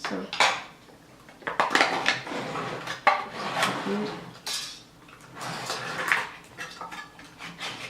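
Kitchenware being handled: a metal spoon and dishes clinking, knocking and scraping in an irregular series.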